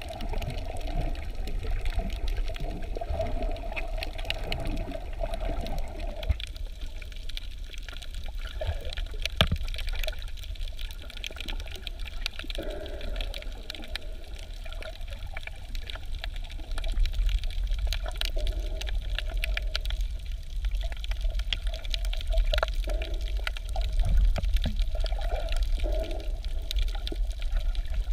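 Water heard underwater: a steady low rumble with many scattered faint crackling clicks, growing louder about two-thirds of the way through.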